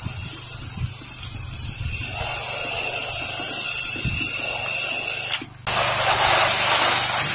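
Pressure washer wand spraying house-wash solution onto vinyl siding: a steady hiss of spray over a steady low hum. About five and a half seconds in the sound drops out for a moment, and then the spray comes back louder.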